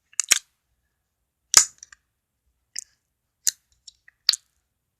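Homemade slime being squished and played with, giving a string of sharp, irregular clicks and pops, the loudest about a second and a half in.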